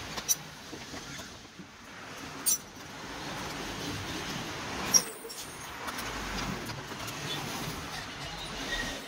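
Three sharp clicks and knocks of tools and parts being handled under a car's opened-up dashboard, the last about five seconds in the loudest, over a steady background noise.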